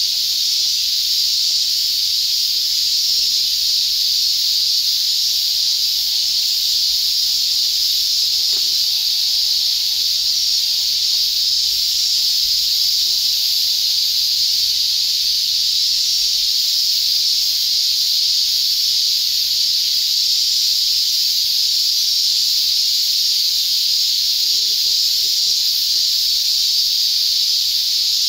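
Steady, high-pitched chorus of insects, an unbroken shrill drone.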